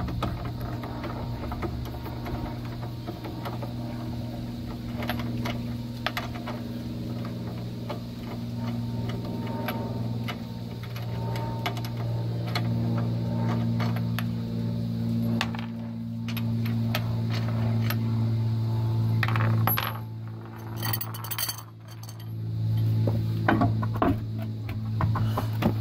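Metal lug nuts clinking as they are spun off the wheel studs by hand and rattle together in the palm, with many short clicks and a busier run of clinks near the end. Steady low humming tones sound underneath.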